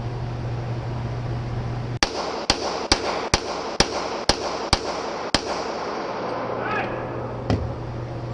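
Handgun fired eight times in quick succession, about two shots a second, in an indoor shooting range lane, then one more sharp crack about two seconds later.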